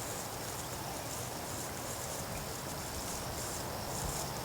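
Insects chirping steadily outdoors, a continuous high-pitched background hiss.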